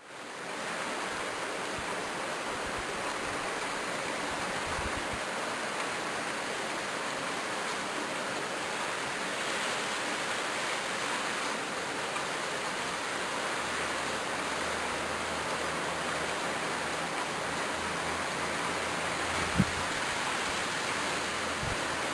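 Rain falling steadily, an even hiss. There is a single sharp tap near the end.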